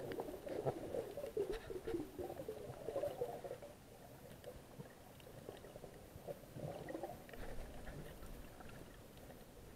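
Muffled underwater water noise heard through a camera's waterproof housing: a low gurgling wash, fuller in the first few seconds and quieter after, with faint scattered clicks.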